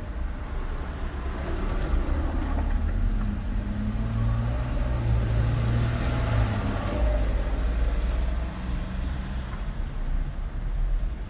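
Street traffic with a motor vehicle passing close by: its engine note drops in pitch as it goes, and a tyre hiss swells about halfway through, over a steady low rumble of traffic.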